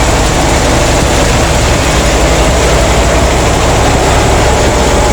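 Harvesting machinery running steadily under load: a heavy engine's low, even beat beneath a loud, continuous mechanical noise.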